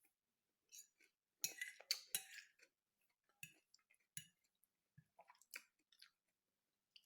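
A person chewing food with mouth open to the mic: soft wet clicks and smacks, with a louder, busier stretch of chewing about a second and a half in.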